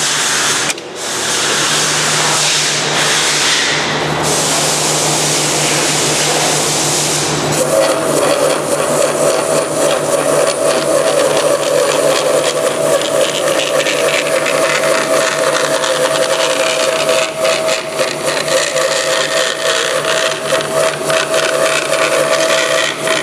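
High-speed bandsaw running, its 1-inch, 3-teeth-per-inch blade moving at about 3,000 feet per minute with no blade guides, under a steady hum. A loud hiss fills the first seven seconds. After that the blade is cutting urethane tooling board in a rip cut, with a steady ringing tone over the running noise.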